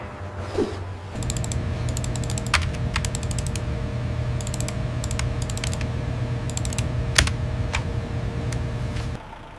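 Computer keyboard typing in short quick bursts, with single sharper clicks between them, over a steady low hum with two faint tones. The typing and hum stop shortly before the end.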